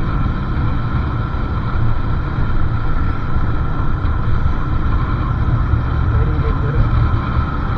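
Motorcycle on the move: a steady low rumble of wind on the microphone mixed with engine and road noise, with no sharp events.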